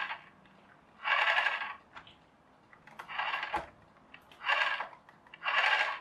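Plastic gear train and small electric motor inside an HL Toys RC scraper's gearbox whirring as a 3D-printed replacement gear on the axle is turned by hand. It comes in four short bursts about a second apart, showing that the printed gear meshes with the gearbox gear.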